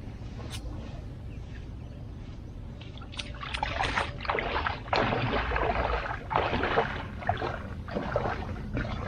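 Water splashing and sloshing around a paddleboard-kayak in irregular bursts, starting about three seconds in, over a low steady rumble.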